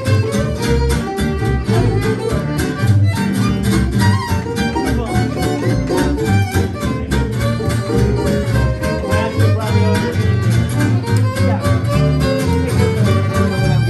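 Live fiddle and two acoustic guitars playing an instrumental passage. The fiddle carries the melody over a steady strummed guitar rhythm.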